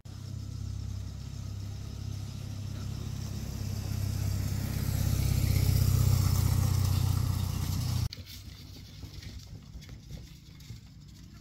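A motor vehicle engine running at a steady pitch, growing louder as it nears, then cutting off suddenly about eight seconds in.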